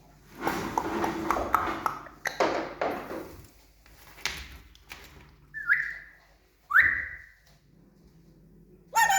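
African grey parrot vocalizing: a few seconds of rough, noisy sounds, then two short whistled chirps and a ringing call with many overtones near the end.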